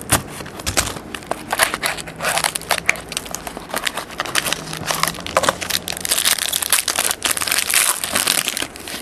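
Irregular crinkling and crackling of plastic packaging handled by hand while trading cards are taken out of a pack.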